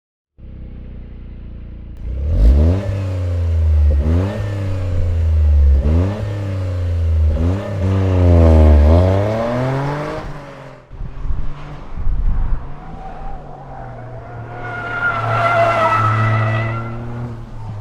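Toyota GR Corolla's turbocharged 1.6-litre three-cylinder engine revving hard, its pitch climbing and falling several times, then tyres squealing in a drift near the end.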